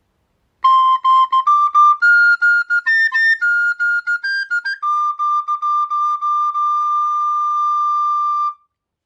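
A recorder playing a Shinkansen chime melody: a short run of stepped notes, then one note repeated quickly and held before stopping near the end.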